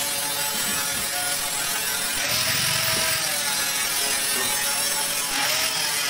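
Handheld angle grinder running against a sheet-metal panel: a steady motor whine under a harsh grinding hiss that swells about two seconds in and again about five seconds in as the disc bites harder.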